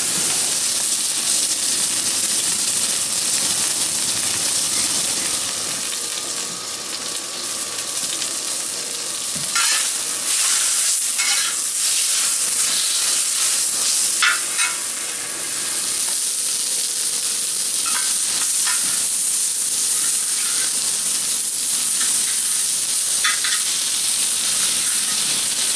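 Pork frying in a discada, a cowboy wok made from a steel plow disc, with a steady sizzle. A few short clatters of stirring break in now and then.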